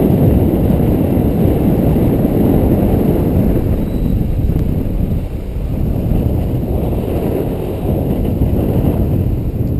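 Wind buffeting the microphone of a camera mounted on the outside of a moving car, a loud, uneven low rumble over the car's driving noise. It eases for a moment about halfway through.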